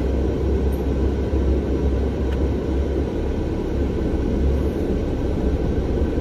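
Steady low rumble inside a car with the engine running.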